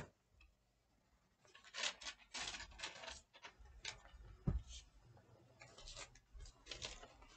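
Rustling, scraping handling noises as things are rummaged through, with one dull knock about four and a half seconds in.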